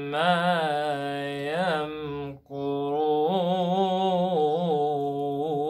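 A young man recites the Quran in the melodic tajweed style, a single voice drawing out long, wavering, ornamented notes. There is a brief pause for breath about two and a half seconds in.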